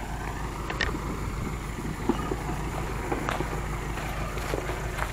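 Vehicle engine running low and steady, with a few scattered short knocks and clicks over it.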